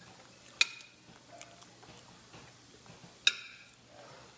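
Metal fork clinking against a plate twice, about two and a half seconds apart, as food is scooped up.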